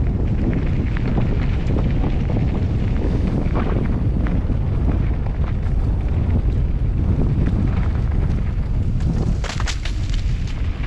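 Wind buffeting the microphone of a riding mountain biker's camera as a steady heavy rumble, with scattered clicks and rattles from the bike on the trail and a short cluster of sharper rattles near the end.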